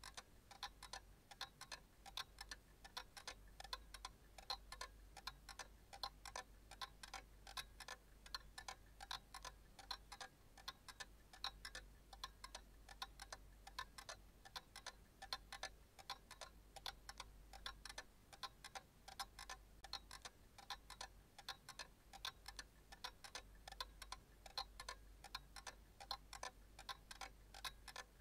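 Clock ticking steadily and faintly, about two ticks a second, over a faint low hum.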